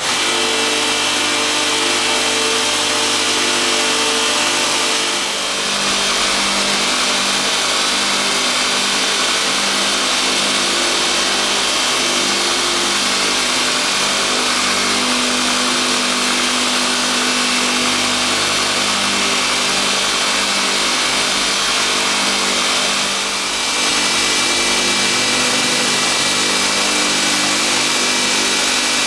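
Homemade belt grinder running: a steady motor hum under the loud hiss of the abrasive belt. The hiss dips briefly twice, about five seconds in and again past twenty seconds.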